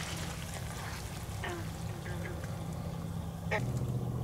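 Two short animal calls, each falling in pitch, about two seconds apart, over a steady low hum that gets louder near the end.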